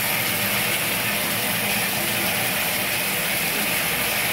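Shower water running steadily into a bathtub, an even hiss with a faint low hum under it.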